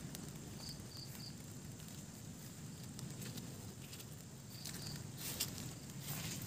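A bird calling in short high notes, in groups of three and then two. A few sharp clicks follow near the end, over a steady outdoor hiss.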